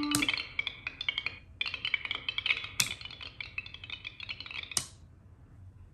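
DIY ambient sound machine playing its loops through its speaker as its toggle switches are flipped: a held tone cuts off with a sharp switch click just after the start, giving way to a dense patter of rapid ticks. Another click comes near the middle, and the ticking stops with a final click about five seconds in, leaving near silence.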